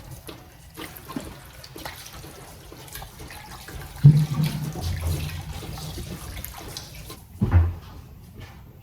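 Water running, as from a tap into a sink, with two low thumps, one about four seconds in and another about seven and a half seconds in.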